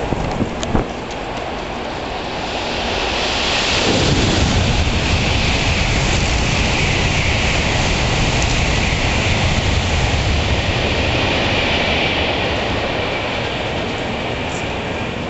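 Shinkansen bullet train passing through the station at speed: its noise builds over the first few seconds, holds for about ten seconds, then fades near the end, with steady rain underneath.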